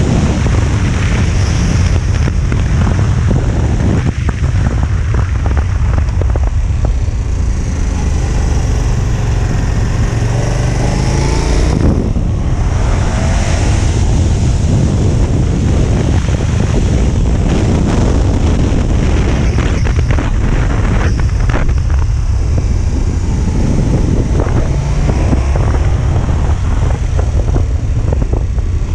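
KTM 1290 Super Adventure's V-twin engine running under way, heard from the rider's seat with heavy wind noise on the microphone. The engine pitch climbs from about eight seconds in and drops sharply at about twelve seconds.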